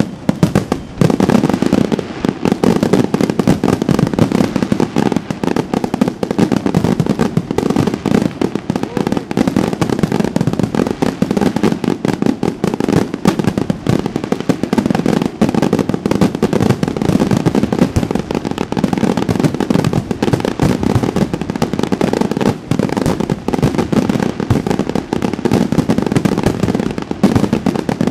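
Aerial fireworks display: a dense barrage of shells bursting, loud bangs following one another without a break.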